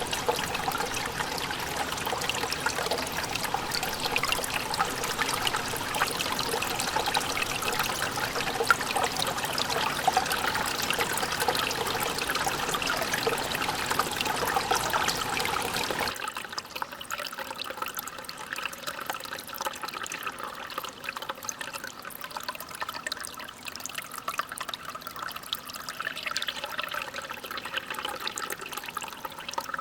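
Waterfall: a steady rush of falling water. About halfway through it changes abruptly to a quieter, thinner rush with the deep part gone, as if a different stretch of falls.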